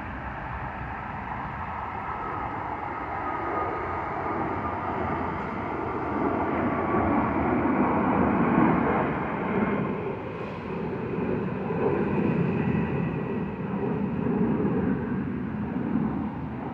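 Jet airliner's engines passing overhead on climb-out: a steady rushing engine noise with a faint high whine that slowly falls in pitch, growing louder toward the middle and then swelling and easing a few times.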